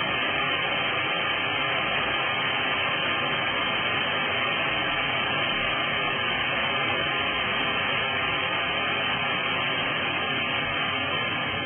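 Steady hiss of analog TV static, white noise from an untuned television, dipping slightly near the end.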